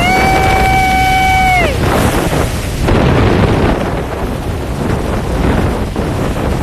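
Wind buffeting the microphone over the rushing water of Niagara Falls, heard from a tour boat close under the falls. Near the start a steady high horn-like tone sounds for under two seconds, sliding up as it begins and down as it ends.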